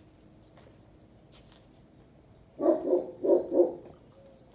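A dog barking four times in quick succession, in two pairs, just past the middle.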